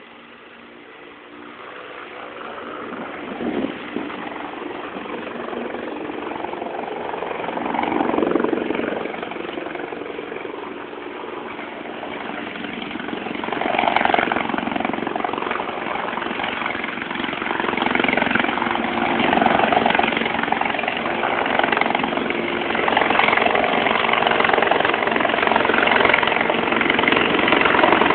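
Helicopter approaching to land: steady rotor and engine noise that grows much louder over the whole stretch, swelling and easing in waves.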